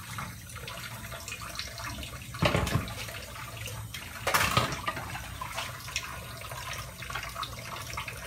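Water running from a kitchen tap into a stainless-steel sink while plates are washed and rinsed by hand, with two louder bursts of sound about two and a half and four and a half seconds in.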